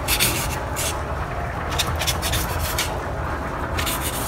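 A kitchen knife slicing raw chicken breast on a foam meat tray, with a few short scratchy strokes as the blade scrapes the foam, over a steady low rumble.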